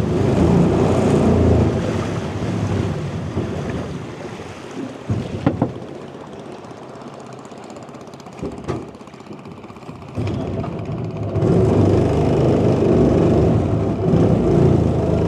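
Small river boat's motor running, then easing off to a low level for several seconds with a couple of sharp knocks. It picks up again about two-thirds of the way through.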